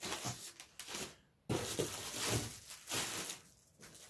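Crinkling and rustling of packaging being handled, in irregular stretches that fade out near the end.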